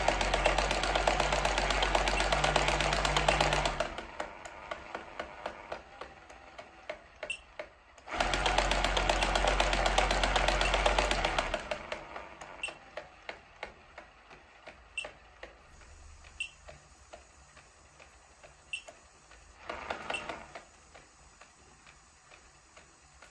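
A small motor-driven mechanism rattling rapidly in two stretches of a few seconds each. Between and after them come lighter, regularly spaced clicks, with a short burst near the end.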